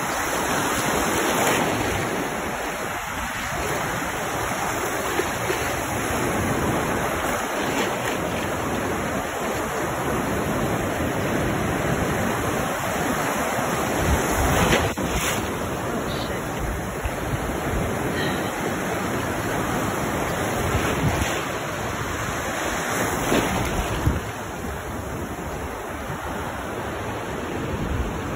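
Ocean surf: small waves breaking and washing up over the sand at the water's edge, a steady rush of water, with wind buffeting the microphone now and then.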